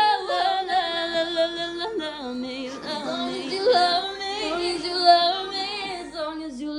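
A woman singing drawn-out, wordless notes with vibrato, with a second vocal line in harmony underneath.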